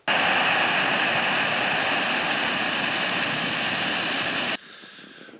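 Backpacking gas canister stove burning at full flame, a steady loud roar that cuts off suddenly near the end.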